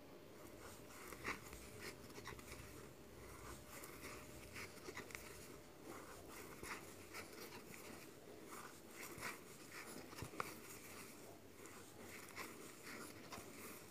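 Faint, soft scratching and rustling of a crochet hook pulling yarn through stitches, in irregular strokes about once a second.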